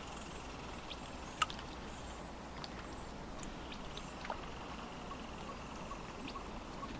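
Lake water lapping softly at the shore, with scattered small clicks and ticks and one sharper click about one and a half seconds in.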